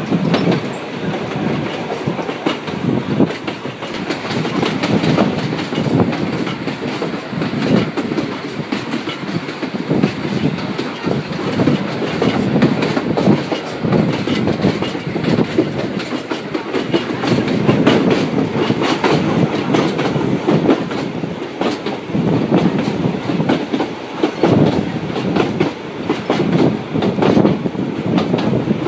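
Narrow-gauge open-sided railway carriage running along the line: a continuous rumble of wheels on rail with the clickety-clack of frequent clicks over the track.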